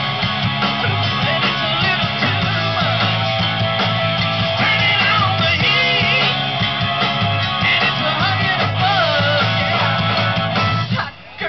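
Live rock band playing: electric guitar, drum kit and singing voices, with a brief dip in the sound just before the end.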